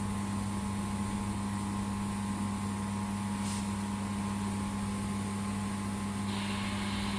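Steady electrical hum of a 2000 W laser welding machine idling, with a low mains-type drone. A hiss comes in near the end.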